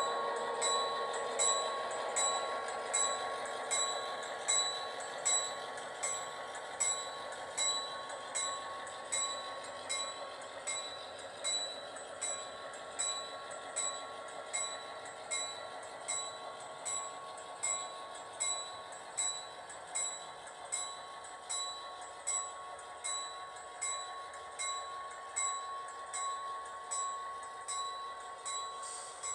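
Grade-crossing bell ringing steadily, a little over once a second, over the steady running sound of model diesel locomotives that slowly fades as the train moves off.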